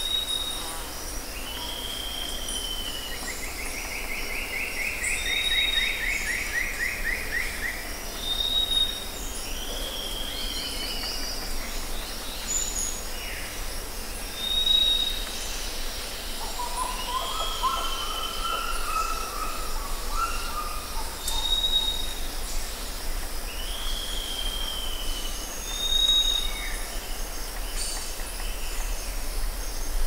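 Rainforest birds calling over a steady high drone of insects. A short high whistle repeats every four or five seconds, each followed by a down-slurred call. A long descending trill comes a few seconds in, and a lower warbling phrase sits in the middle.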